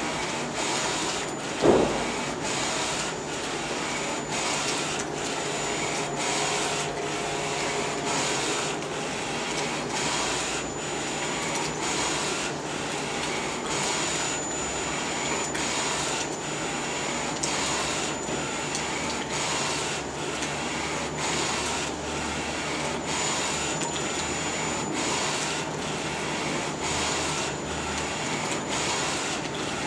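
Flatbed direct-to-garment T-shirt printer running, its print-head carriage sweeping back and forth in a regular beat of about one pass a second, with a thin high whine that comes and goes. A single loud thump comes about two seconds in.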